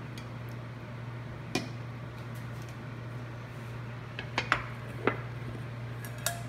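Stainless steel kitchenware clinking and knocking: about five sharp clinks, two in quick succession past the middle, some with a brief metallic ring. Under them runs the steady low hum of a range hood vent fan.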